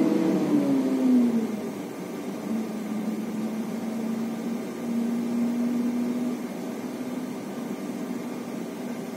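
Airbus A321neo airliner in descent: steady rushing noise with a low engine hum that slides down in pitch about a second in and then holds steady.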